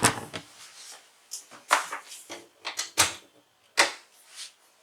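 Handling of a household electric iron: about six sharp plastic clicks and knocks, spaced irregularly.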